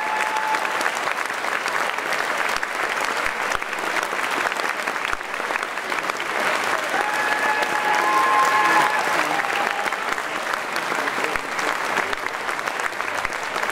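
A concert-hall audience applauding steadily at the end of a performance. A held tone sounds over the clapping briefly at the start and again for about two seconds in the middle.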